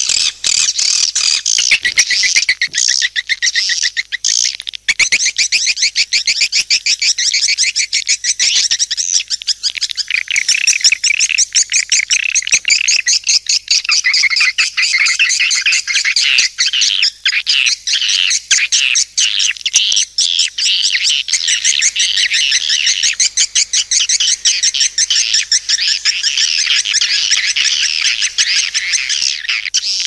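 Swiftlets (walet) chattering: a dense, continuous mass of rapid high-pitched twittering chirps, many birds overlapping. This is a swiftlet lure call of the kind played to draw the birds into a nesting house.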